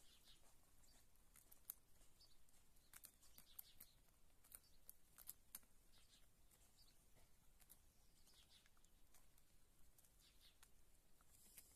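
Hens pecking grain and bread crumbs off a concrete floor: faint, irregular quick taps of beaks on concrete.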